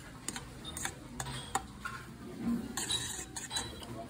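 Stainless steel chopsticks clicking and scraping against a metal bowl while stirring cold noodles in broth: irregular light clicks, with a brief busier clatter about three seconds in.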